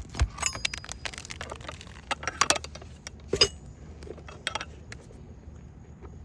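Sharp metallic clinks and knocks from hand tools and nails being handled during shingle repair. The clinks come irregularly, a cluster in the first two seconds, the loudest about three and a half seconds in, then one more about a second later.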